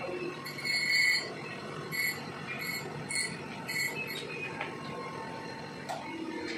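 A run of short, high-pitched metal scrapes or squeaks from tool work on engine parts, about five in the first four seconds, over a steady low workshop background.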